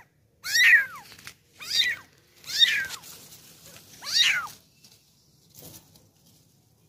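Very young kitten, about a month old, mewing: four high mews that rise and fall in pitch, about one a second.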